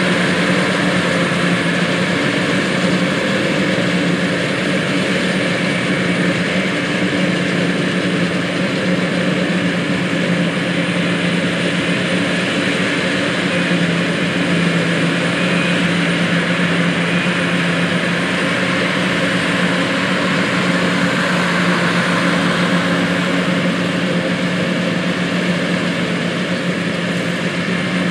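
John Deere 8600 self-propelled forage harvesters chopping corn for silage under load, with tractors pulling forage wagons: a loud, steady drone of heavy diesel engines and chopping machinery with a strong low hum.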